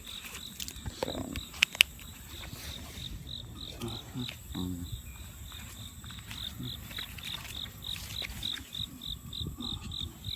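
An insect chirping steadily in short high-pitched pulses, about three to four a second. Two sharp clicks come close together near the two-second mark.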